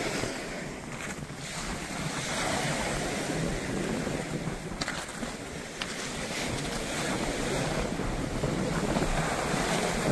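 Baltic Sea surf washing onto a pebble beach, with wind buffeting the microphone; two faint clicks about halfway through.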